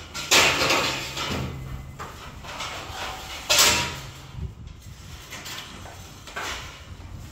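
Paint roller on an extension pole rolling paint across a ceiling: two loud strokes about three seconds apart, each fading over about a second. Near the end a softer swish as the roller is worked in the paint bucket.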